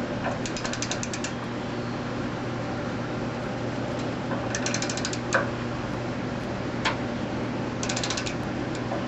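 Ratchet wrench clicking in three quick runs while tightening a stud diode into the welder's rectifier plate, with one sharper single click about five seconds in.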